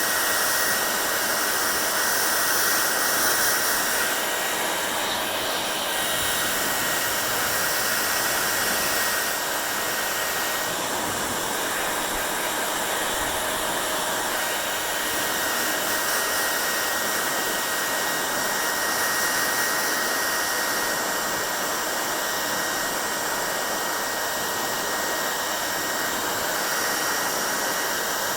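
Hand-held hair dryer running steadily: a constant rush of air with a faint high whine, the hiss shifting slightly a couple of times.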